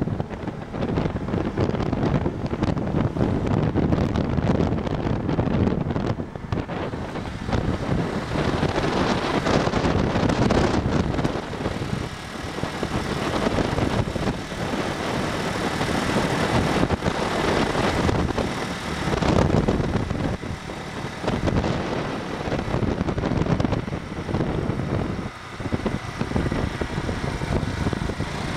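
Riding noise from a moving motorbike: the bike's engine and road noise mixed with wind buffeting the microphone, unsteady and gusty in level.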